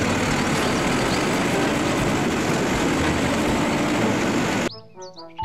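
Automated side-loader garbage truck running, its diesel engine and hydraulic arm working as the arm lifts a wheeled trash cart and tips it into the hopper. The sound cuts off abruptly near the end, giving way to children's music with short, separate notes.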